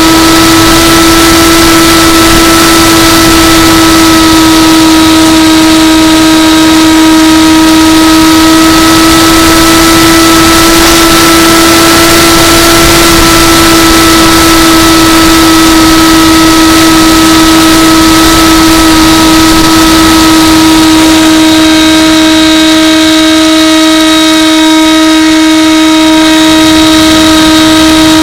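Electric motor and propeller of an AXN Floater RC plane running at a steady whine, with the pitch holding nearly constant, over a constant rush of wind noise.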